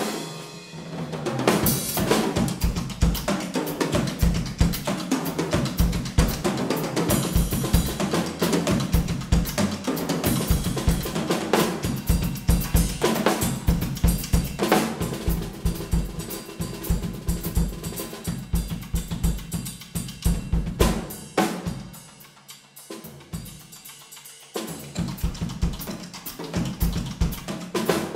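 Two drummers playing drum kits together in a percussion duet: dense snare, bass drum and cymbal strokes. The playing thins to a quiet, sparse passage about three-quarters of the way through, then comes back at full strength.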